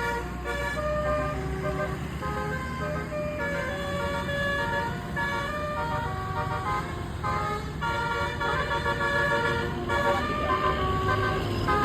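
Telolet basuri bus horn, a multi-trumpet air horn with nine trumpets, playing a tune as a string of held notes that change pitch, with a few short breaks.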